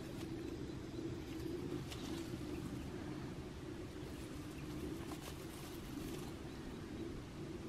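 Two cats scuffling on dry grass and leaf litter as they play-fight: soft, scattered rustles over a steady low hum.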